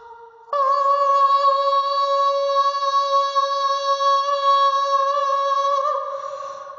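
A single sustained vocal note, a held hum or 'ooh' used as a vocal background sound. It starts about half a second in, holds one steady pitch for about five seconds, then wavers and fades near the end.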